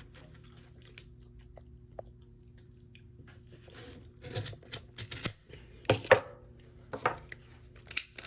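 Scissors cutting through seatbelt webbing: handling rustle, then a run of crisp snips, about seven over the last four seconds.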